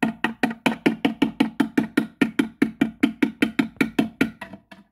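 Rapid, even knocking on a hard hollow surface, about five knocks a second, that stops shortly before the end. It is someone knocking to be let in.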